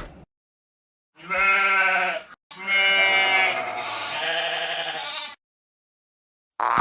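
Made-up creature voice for a BIONICLE Rahi: two pitched animal-like calls, a short one about a second in and a longer one of about three seconds right after it.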